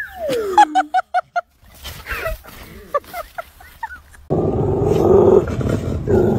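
A dog giving a quick run of short, high calls, followed by scattered calls. About four seconds in, a loud rushing noise takes over.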